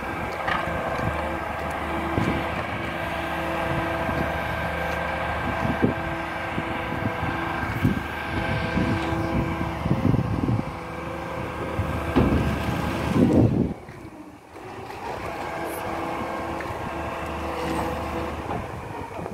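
Plastic-recycling truck with a crane and on-board processing machine running: a steady hum of several held tones, with irregular knocks and clatter that come thicker about halfway through. About fourteen seconds in the sound drops sharply and a quieter hum carries on.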